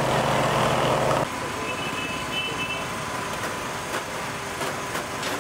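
A steady engine hum with an even pitch, like a motor idling, cuts off abruptly about a second in. Quieter street ambience follows, with a faint steady tone and a few light clicks.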